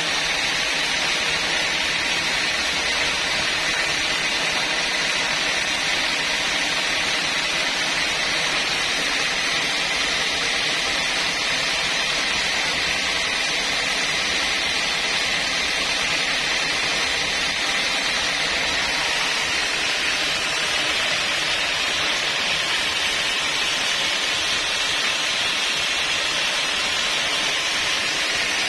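Band sawmill running with no log in the cut: a steady, unbroken whirring hiss that holds the same level throughout.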